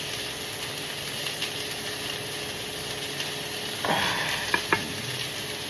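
Chicken sizzling as it fries in a pan, under the steady hum of a range hood fan running on low. About four seconds in there is a brief rustle followed by two sharp clicks.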